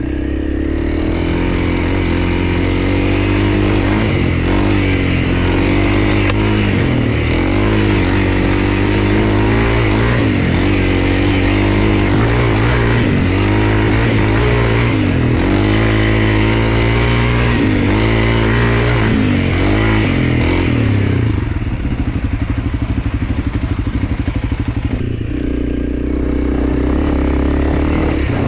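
Honda CRF300L's single-cylinder engine being ridden, its revs rising and falling again and again with the throttle. About three-quarters of the way through it drops to a low, pulsing idle for a few seconds, then picks up again.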